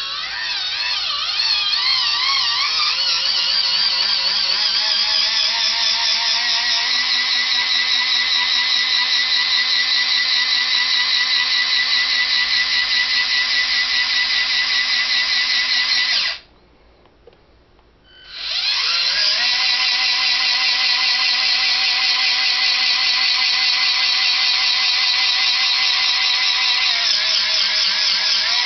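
Whine of the RC Freightliner dump truck's electric dump-bed lift motor and gearing as the bed tips up, climbing in pitch over the first few seconds and then holding steady. It stops abruptly about 16 seconds in and starts again about two seconds later as the bed lowers.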